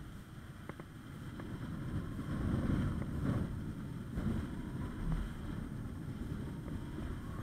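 Wind buffeting the microphone of a camera mounted on a flying kite: a steady low rumble that swells about two to three seconds in, with a few faint ticks.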